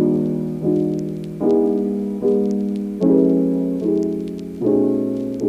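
Background piano music: soft chords struck in a slow, even rhythm, a new chord about every second, each fading away.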